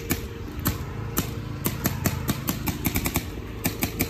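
Paintball markers firing: sharp pops in quick, irregular strings, several a second, over a steady low hum.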